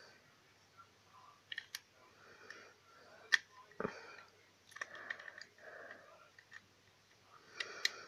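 Plastic Rubik's cube pieces clicking and knocking as they are handled and pressed back into the disassembled cube: irregular sharp clicks, a few close together near the end, over soft rubbing of plastic.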